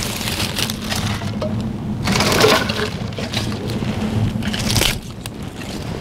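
Wood fire burning in the firebox of a homemade brick-and-adobe oven: a steady rushing noise, with louder surges about two seconds in and again near the five-second mark.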